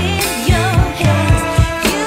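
Background song: a singing voice over a steady drum beat and bass.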